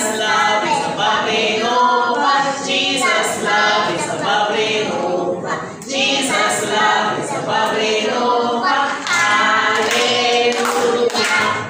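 A small group of young children singing together unaccompanied, an action song with hand motions.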